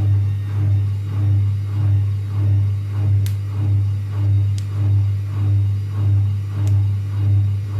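Zanussi ZWSE680V washing machine in its final spin, its freshly repaired shock absorbers carrying the drum: a steady low hum that swells and fades about one and a half times a second, with three faint ticks.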